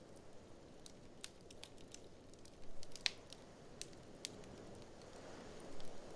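Wood fire in an open fireplace crackling, with irregular sharp pops and snaps, the loudest about three seconds in. Under it runs a low, steady rushing noise that swells near the end.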